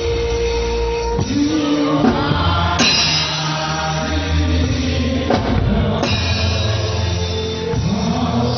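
Gospel worship song: voices singing long held notes over a drum kit, with two sharp hits about three seconds in and again about six seconds in.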